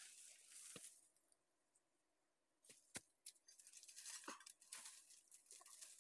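Near silence, with faint rustling and a few sharp clicks, most clearly about three seconds in.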